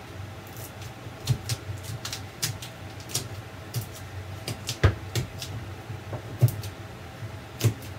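Irregular clicks and taps of a metal pancake flipper worked as a screwdriver against screws in the foam wall panel, with a steady low hum underneath.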